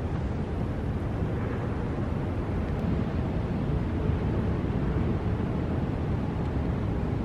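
Steady low outdoor rumble with no distinct events, like wind on the microphone.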